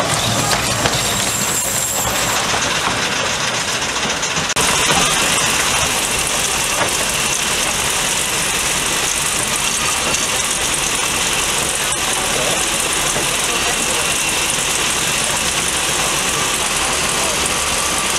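Narrow-gauge (2 ft) steam locomotive running, with a steady hiss of steam.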